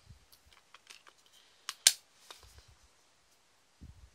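Small plastic clicks and taps from Blu-ray discs being handled in a clear plastic multi-disc case, with one sharp, loud click about two seconds in as a disc snaps onto its hub. A few dull knocks from the case are handled near the start and near the end.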